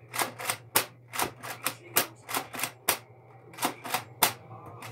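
Nerf N-Strike Raider CS-35 pump-action dart blaster being pumped and fired over and over: a quick string of sharp plastic clacks and dart shots, about three a second, with a short pause about three seconds in.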